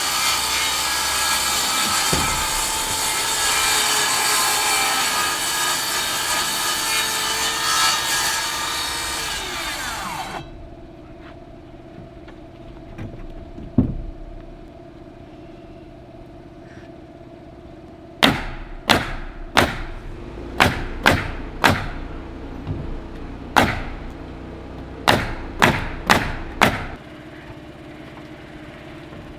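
Makita 36-volt 9¼-inch cordless track saw cutting through roof sheathing for about ten seconds, then winding down. Later comes a run of about a dozen sharp knocks.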